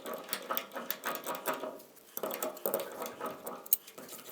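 Light, rapid clicks and small squeaks of the plastic vacuum plug and its parts being worked by hand on top of a hand-crank diesel transfer pump. They pause briefly about halfway, then resume, with one sharper click near the end.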